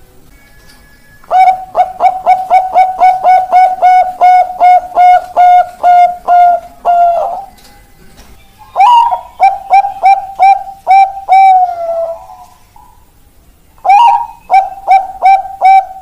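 Bangkok-type zebra dove (perkutut) cooing in three phrases. Each phrase is a quick run of short, even coos, about five a second, ending in a longer drawn-out final note.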